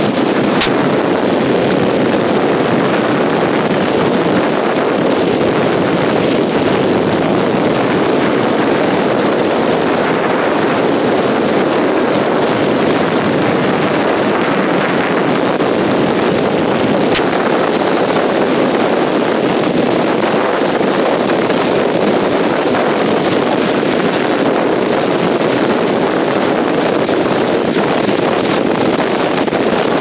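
Strong gusty wind roaring steadily and buffeting the microphone, with two brief clicks, one near the start and one about halfway.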